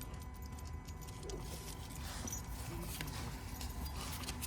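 Light metallic clinking and rattling, as of tools or parts handled, over a low steady rumble.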